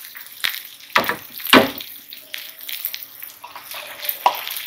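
Vegetables and egg sizzling in a hot frying pan as the beaten egg yolk is poured over them. Three sharp taps come in the first two seconds, about half a second apart.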